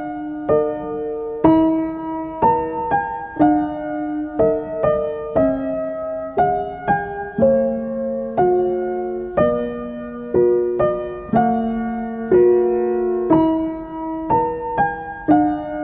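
Background piano music: a slow, gentle melody of single struck notes, about one to two a second, each ringing and fading before the next.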